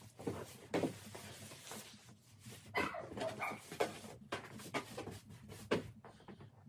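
A dog barking and whining a few times in short bursts, over the rustle of absorbent puppy pads being spread into a plastic pool.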